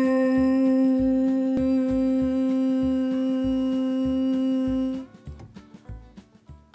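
A woman singing one long 'moo' on a single steady note, held for about five seconds and then stopping. A soft low beat pulses underneath.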